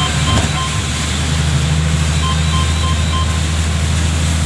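Steady hiss of heavy, wind-driven rain with a low, steady vehicle hum beneath it. A short high electronic beep repeats about three times a second in two groups of three or four.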